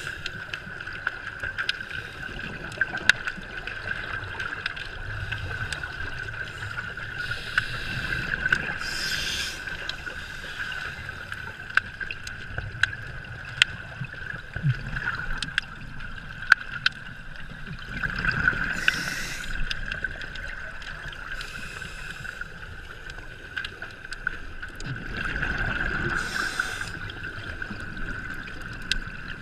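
Underwater sound of a scuba diver's regulator: a few rushing bursts of exhaled bubbles several seconds apart, with low rumbling. Behind them is a steady high hum and scattered sharp clicks.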